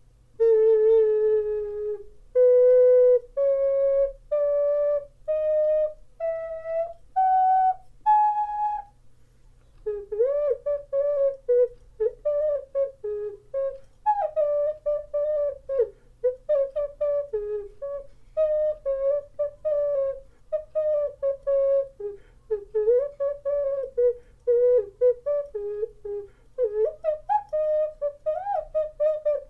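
Ceramic ocarina playing a rising scale of about eight held notes, one after another, then a melody of shorter notes with slides and bends between them.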